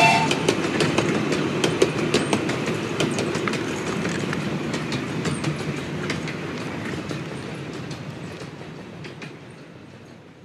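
A 7¼ inch gauge miniature railway train rolling past and away, its wheels clicking over the rail joints as the sound fades steadily. The train's whistle cuts off just at the start.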